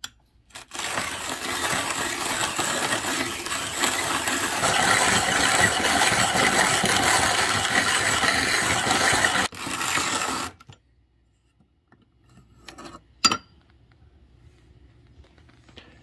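Vintage German wall-mounted hand-crank coffee grinder with a cast iron grinding body, grinding coffee beans as the crank is turned: a steady crunching grind lasting about nine seconds, then stopping. A single sharp knock comes a few seconds after the grinding ends.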